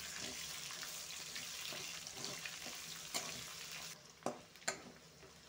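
Garlic and onion sizzling in hot oil in a kadhai, a steady frying hiss that drops away about four seconds in, followed by two short knocks.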